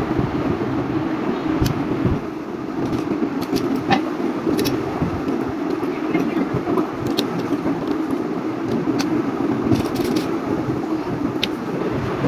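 Plastic building bricks clicking as they are snapped together and set down on a glass tabletop: scattered sharp clicks, a dozen or so, over a steady low background rumble.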